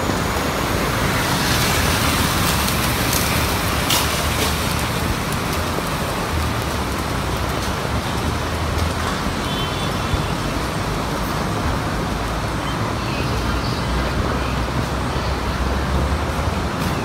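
Steady road-traffic noise with a low rumble. A couple of brief clicks about three and four seconds in.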